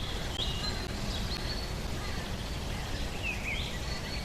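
Outdoor ambience: birds giving short, scattered chirps over a steady low rumble.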